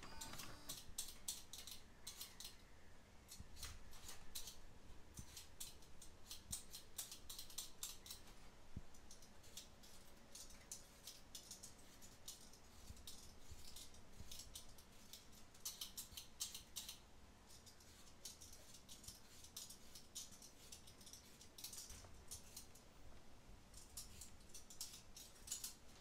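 Faint, rapid clicking in irregular runs of a second or two, with short pauses between the runs.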